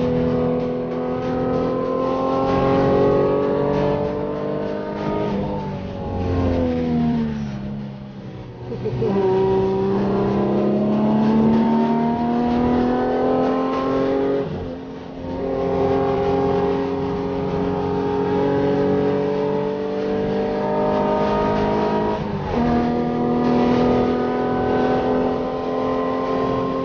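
Tuned 3.0-litre Alfa Romeo V6 with free-flow Sodemo headers and exhaust, heard from inside the cabin under hard track driving. The engine note drops for a couple of seconds as the car slows, then climbs steadily, with brief breaks at gear changes about 15 and 22 seconds in.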